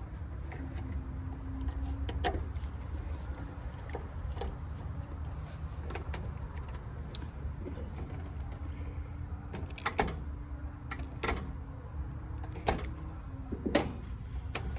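Hand tools clicking and knocking on the metal of an air-conditioning condenser's electrical panel during wiring work, a few sharp clicks standing out about two seconds in and again from about ten seconds in to near the end, over a low steady hum.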